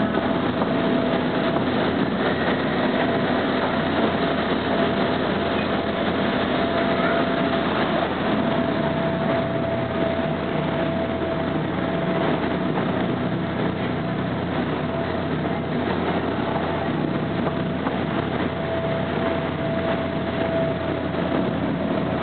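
A tour boat's engine running steadily under way, with a constant tone over the rush of wind and water.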